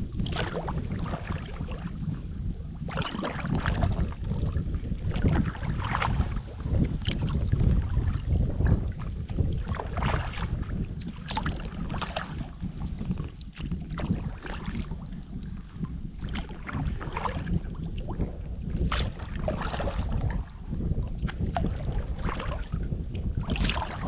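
Kayak paddle strokes: the blade splashes and drips about once every second or two, over a steady low wind rumble on the microphone.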